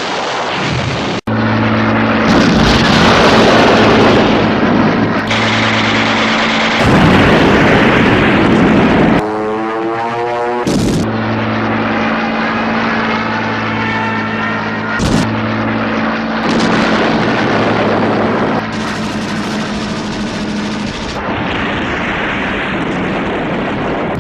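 World War II battle sound effects spliced together, with abrupt changes every few seconds: the steady drone of propeller aircraft engines alternating with stretches of gunfire and artillery blasts.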